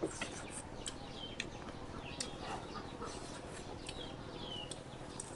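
Birds chirping: short, high notes that slide downward, repeated every second or so, with a few sharp clicks in between.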